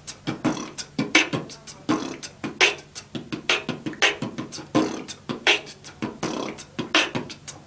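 Vocal beatboxing: a fast beat of mouth-made kick and snare strikes, about two to three a second, over a low, buzzing lip bass.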